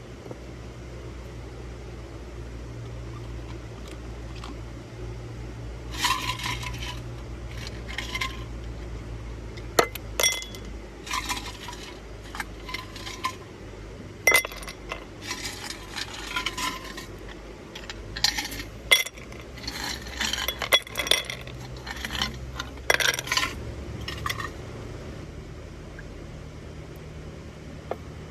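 Irregular light clinks and clatters of small hard objects, metal or glass, being handled, over a steady low hum. The clinks come in scattered clusters for most of the time, then stop a few seconds before the end.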